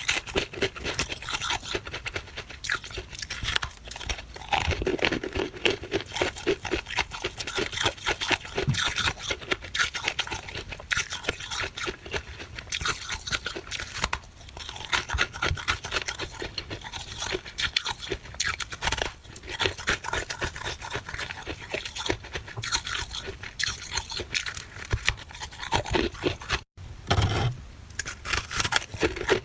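Freezer frost being chewed close to the microphone: dense, crisp crunching of soft, dry frost bites and chunks, with a brief break near the end.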